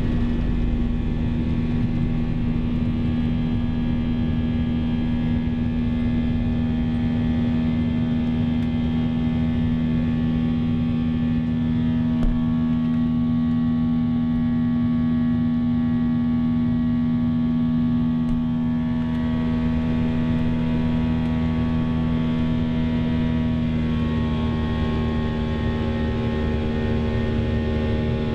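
Boeing 737-800's CFM56-7B turbofan engines at takeoff thrust, heard from the cabin: a steady drone with several whining tones above it, during the climb-out just after liftoff. A deep rumble fades out in the first second, and a single thump comes about twelve seconds in.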